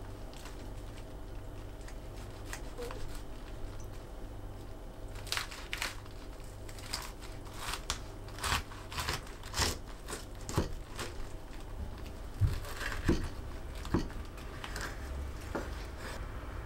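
Kitchen knife cutting down through a stack of raw napa cabbage leaves and sliced pork. From about five seconds in there is a run of short, sharp crackling snaps as the blade goes through the cabbage, with a few low knocks of the blade reaching the wooden board near the end.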